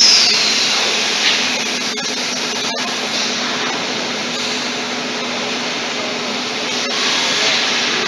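Three-phase industrial vacuum cleaner running steadily, a hum under a hiss of rushing air, as its floor nozzle sucks up water from a wet floor. A falling whistle sounds in the first second.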